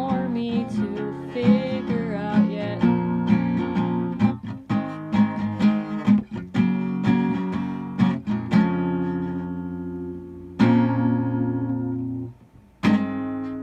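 Acoustic guitar strumming the closing bars of a song, with a steady run of strokes that gives way to a few single chords left to ring out, the last one near the end.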